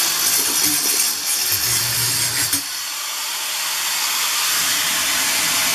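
Handheld corded power tool running continuously as it cuts into the log wall through the vent opening, a steady hissing, grinding noise.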